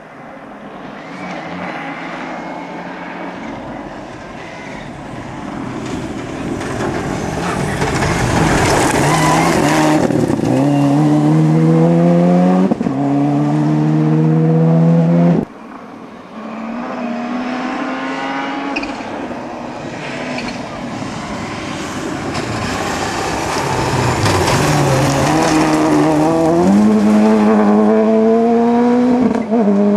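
Rally cars at full throttle on a special stage. One car's engine builds and climbs in pitch through gear changes before breaking off abruptly about halfway. Another then builds and revs up through its gears in the same way.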